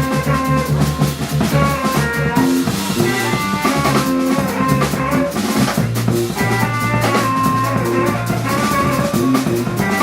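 A live band playing: drum kit with bass drum and rimshots under electric guitar and bass lines.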